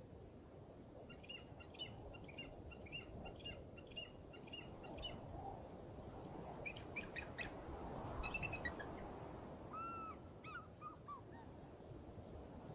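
Small wild birds chirping over a steady low rushing noise. A quick run of repeated short chirps, about two or three a second, fills the first few seconds. Then come a few separate calls, with short down-slurred notes near the end.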